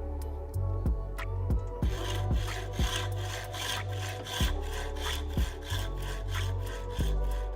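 A hand saw cutting in quick back-and-forth strokes, about four a second, starting about two seconds in. Background music with a bass beat plays throughout.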